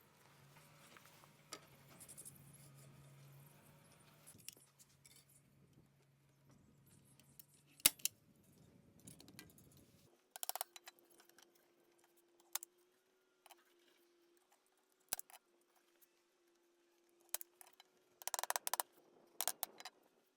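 Faint, scattered clicks and snips of hand work on a beehive frame, coming singly and then in quick clusters near the end, over a low steady hum that shifts to a higher tone about halfway.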